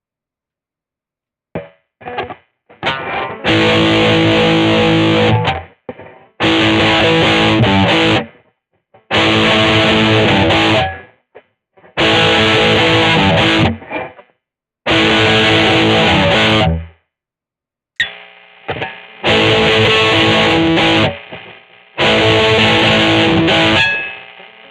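1982 Vantage VE-550 electric guitar played with a distorted tone, a few short plucked notes and then a series of loud strummed chords, each held about two seconds and cut off in short breaks.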